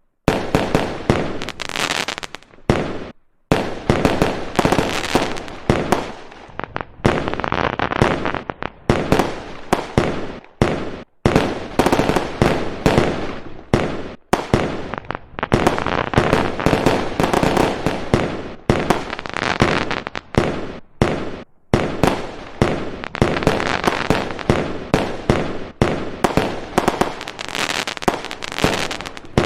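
Fireworks going off in rapid succession: dense sharp bangs and crackling, cutting off abruptly to silence a few times before starting again.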